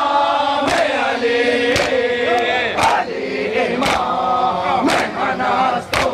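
A crowd of men chanting a mourning lament together in unison, marked by a sharp, simultaneous slap of hands striking chests (matam) about once a second.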